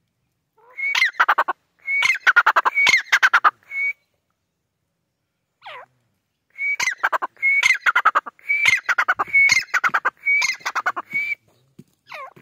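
White francolin calling in two bouts of repeated phrases. Each phrase is a whistled note followed by a fast clicking rattle. The first bout lasts about three seconds and the second, longer bout about five, with a single short falling note between them.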